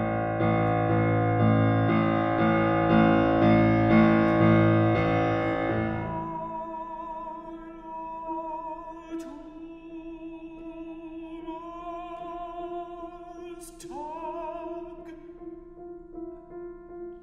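Art song for baritone and grand piano: loud, dense piano chords swell for about six seconds, then the piano drops to sparse, quiet notes under a baritone holding long notes with vibrato, sweeping up into a higher note near the end.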